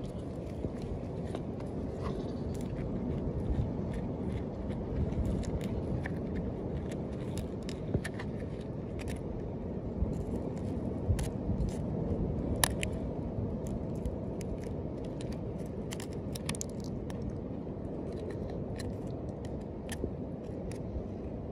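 Thin metal blade scraping and picking at the moss and crusty growth on a small turtle's shell: irregular small scratches and clicks, a few sharper ones, over a steady low background rush.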